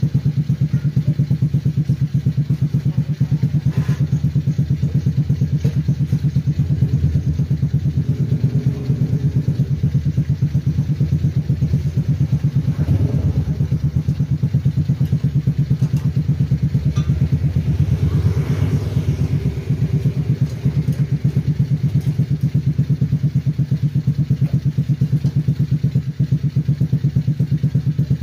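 Small offroad go-kart engine idling steadily with a fast, even pulse.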